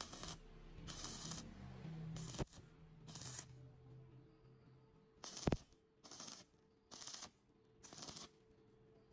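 Stick (arc) welding: a string of short arc bursts, about eight, each a fraction of a second of hiss about a second apart, as the electrode is struck again and again to tack the joints. Two sharp clicks fall among them, the louder about halfway, over a faint steady hum.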